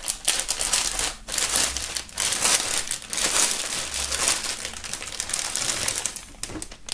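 Clear plastic wrapping crinkling and crackling as a folded T-shirt is pulled out of it by hand, with short lulls about a second in and near the end.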